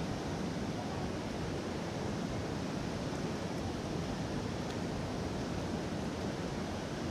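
Steady rush of river water pouring over a low dam spillway and churning below it.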